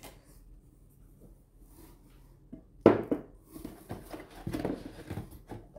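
A sharp knock about three seconds in as a glass candle jar is set down on a hard surface, followed by crinkling and rustling of plastic bubble wrap packing while the next candle is lifted out of the box.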